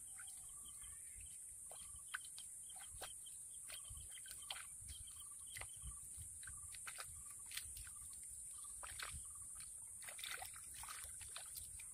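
Faint squelching and scraping of wet, waterlogged mud being dug and scooped with a short-handled digging tool and bare hands, with scattered small clicks and splashes, over a steady high hiss.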